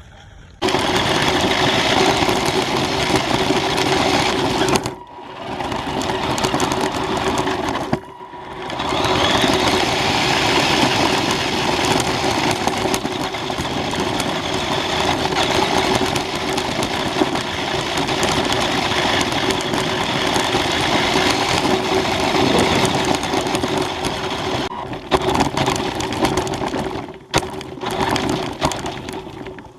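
New Bright Polaris toy RC car driving: its small electric motor whines steadily while the tyres run over the ground. The motor cuts out briefly about five seconds in and again about eight seconds in, then starts and stops several times near the end.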